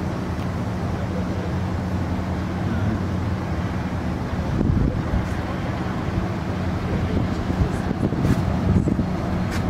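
Wind buffeting the microphone in gusts, strongest about halfway through and near the end, over a steady low hum.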